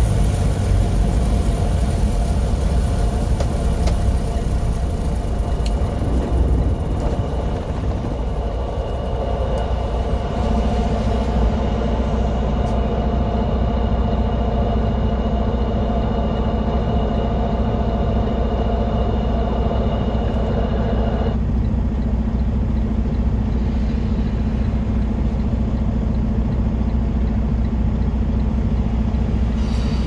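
Steady engine and road rumble inside a moving vehicle's cabin. About ten seconds in a steady hum sets in, and a set of higher whining tones cuts off suddenly a little past twenty-one seconds.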